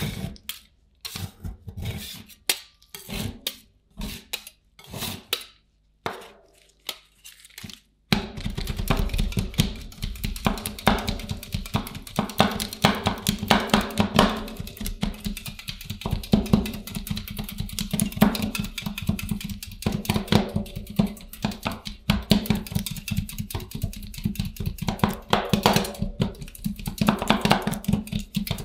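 Metal spatulas chopping on the chilled steel plate of an ice cream roll pan. It starts as separate sharp knocks and turns to rapid, continuous chopping about a third of the way in.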